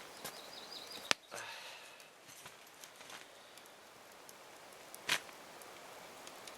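Quiet outdoor background with two sharp clicks, a strong one about a second in and a softer one about five seconds in, and a brief high wavering trill near the start.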